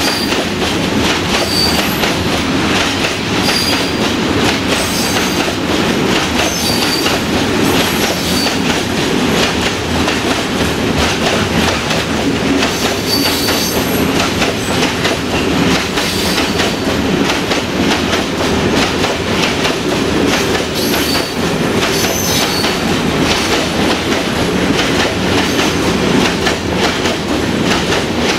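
Heavy freight train of covered hopper wagons rolling past close by: steady, loud wheel rumble and clatter over the rails, with brief high wheel squeals every second or two.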